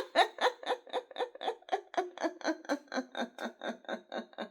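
A woman laughing on purpose as a laughter yoga exercise: a steady run of short "ha" pulses, about five a second, fading slightly near the end.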